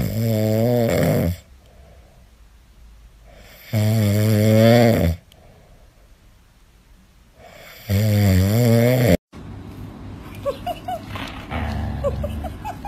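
Husky puppy snoring in its sleep: three loud snores, each about a second and a half long with a wavering pitch, roughly four seconds apart. After the third, quieter short high squeaks over a low rumble.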